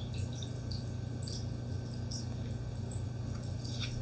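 Faint ticks and light scrapes from playing cards being handled and slid, with a few more near the end, over a steady low hum.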